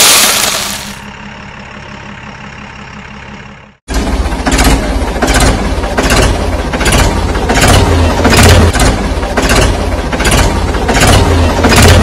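Soil pouring from a tipping toy dump truck's bed, a loud hiss that dies away about a second in, leaving a low engine hum. After a sudden cut near four seconds, a diesel tractor engine sound runs with a regular pulse roughly twice a second.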